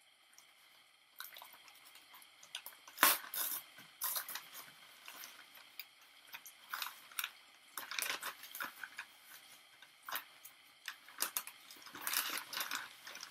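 Paper wrapping rustling and crinkling as a package is unwrapped by hand, in irregular crackling bursts, loudest about three seconds in.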